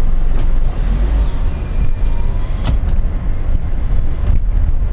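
Cabin sound inside a Nissan Serena C24 minivan driving slowly: a steady low engine and road rumble, with a sharp click a little past halfway.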